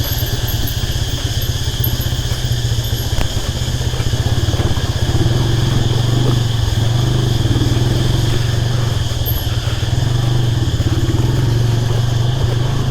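Motorcycle engine running steadily at low revs as the bike rolls slowly along a rough off-road trail.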